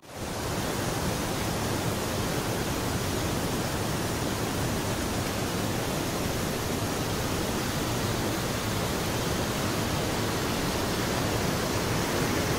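Steady rushing of a rocky mountain stream, an even unbroken hiss.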